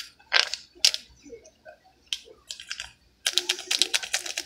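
Small clear plastic bag of craft sand being handled and crinkled: a few scattered clicks, then a dense run of crackling from a little past three seconds in.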